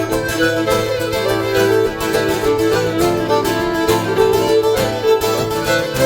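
Instrumental folk music with a steady beat and no singing.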